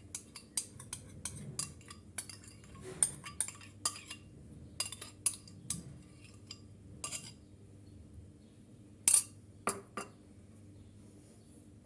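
A utensil clinking against a mixing bowl while batter is stirred by hand: quick, irregular ticks, then two louder knocks near the end.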